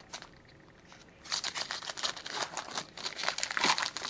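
A trading card pack's shiny wrapper being slit and torn open by hand. After about a second of quiet, a dense run of crackling and rustling begins and continues.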